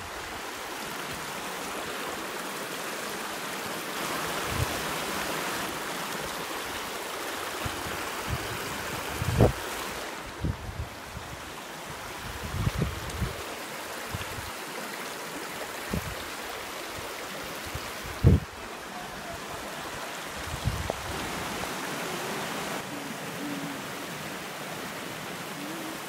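A shallow rocky stream rushing steadily, with a few brief low thumps on the microphone.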